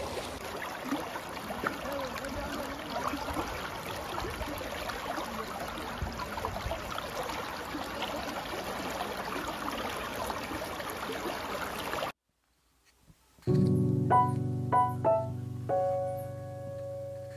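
Shallow river water rushing over stones in a steady wash. About twelve seconds in it cuts off, and a moment later background piano music begins.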